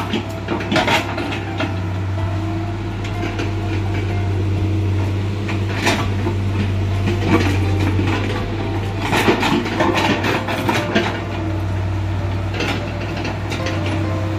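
Hitachi crawler excavator's diesel engine running steadily while the bucket scrapes and levels soil, with sharp metal clanks from the bucket and its linkage, loudest about six seconds in and again around nine to eleven seconds.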